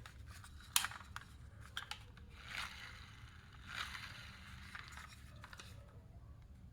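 Toy cars handled on a hard surface: a sharp click just under a second in, two lighter clicks shortly after, then two short scraping rubs and a few faint ticks.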